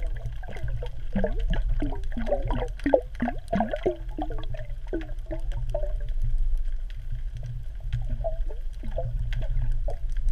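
Underwater sound picked up by a GoPro in its waterproof housing: a steady low rumble of moving water, with bursts of gurgling bubbles and scattered clicks.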